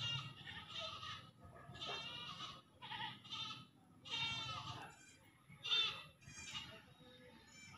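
Ten-day-old puppies whimpering: a run of short, high, wavering cries, about one a second.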